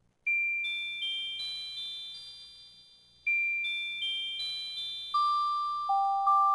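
Background music: a music-box melody of high, ringing single notes, each fading after it is struck. The tune starts about a quarter second in and its phrase begins again about three seconds in, with lower notes near the end.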